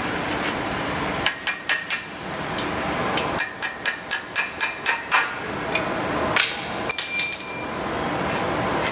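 Sharp metal-on-metal knocks as the long front-fork bolt is worked out of the steel shipping crate: a few knocks about a second in, then a quick run of them for about two seconds, and a ringing metal clink later on.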